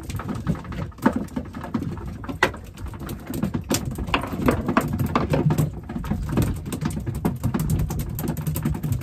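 Freshly caught mackerel flapping and tapping irregularly against the boat's deck while being unhooked from a string of feathers, over a steady low rumble.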